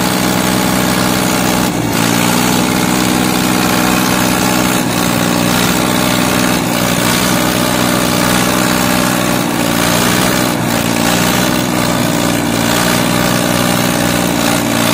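Diesel tractor engines running steadily at a loud, even pitch, with a slight shift in engine note about two seconds in.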